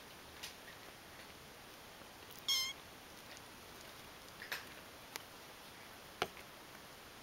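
A kitten gives one short, high-pitched mew about two and a half seconds in. A few faint clicks and taps come before and after it, with a sharp tick near the end.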